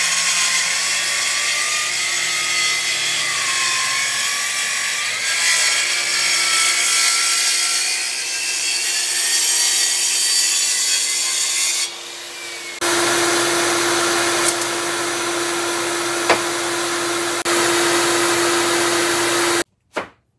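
Track saw ripping along the edge of a long board, its motor pitch wavering as it works through the cut. About 13 seconds in this gives way to a steady hum and rush, which cuts off abruptly near the end.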